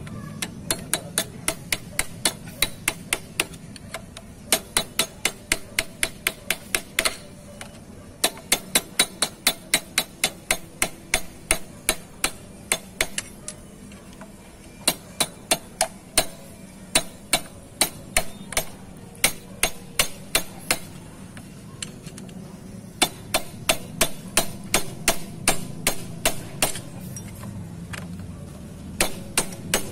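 Hammer tapping a punch or screwdriver held against a motorcycle's centrifugal clutch assembly: sharp metal-on-metal taps in runs of about four a second, with short pauses between the runs.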